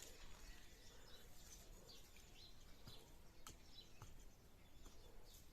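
Near silence: faint, scattered bird chirps over quiet outdoor background, with a couple of faint clicks about three and a half seconds in.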